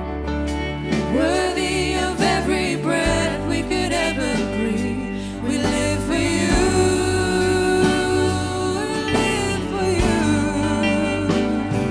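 Contemporary worship song: a singer over a band with bass and a drum beat.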